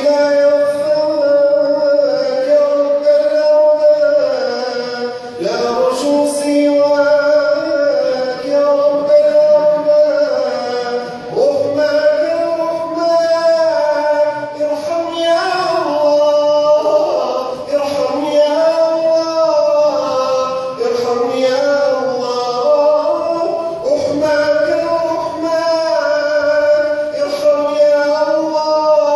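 Arabic nasheed sung by a male voice: a continuous, drawn-out melodic line with long held notes that slide between pitches.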